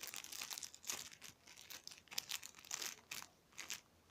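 Irregular crinkling and rustling of plastic as a small squishy toy and its wrapping are handled, fading out near the end.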